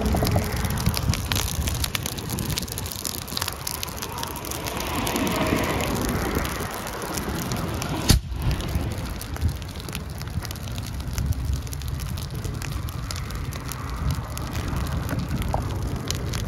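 A car burning fully engulfed in flames, with dense crackling and popping over a low rumble. There is one sharp pop about eight seconds in.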